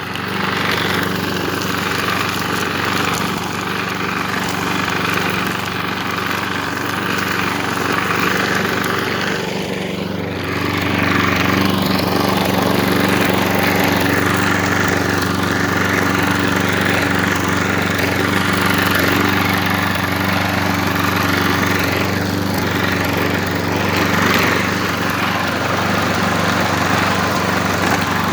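Craftsman lawn mower's replacement engine running steadily during a test mow. About ten seconds in the note dips briefly, then carries on a little louder.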